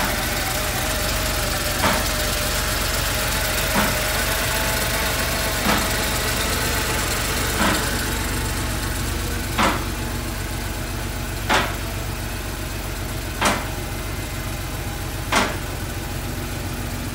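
1986 Porsche 911's air-cooled 3.2-litre flat-six, freshly rebuilt, idling steadily. A sharp tick sounds about every two seconds, and the engine is a little quieter from about halfway through.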